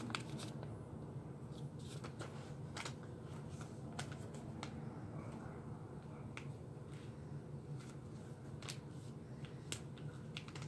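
Sheet of paper being folded and creased by hand: scattered soft crinkles and clicks over a faint low hum.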